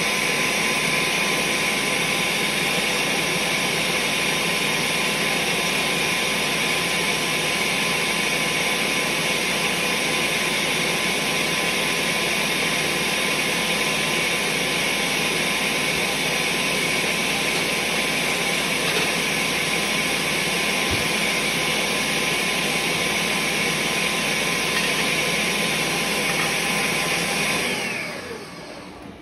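Countertop blender running steadily, pureeing chickpeas into hummus. Near the end the motor winds down with a falling whine and stops.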